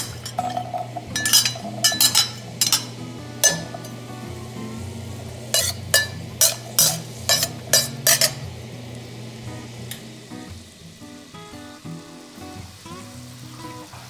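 Diced carrots sizzling in hot oil in a stainless steel pan, with a metal ladle clinking and scraping against the pan in two runs of quick strokes, in the first few seconds and again about six to eight seconds in.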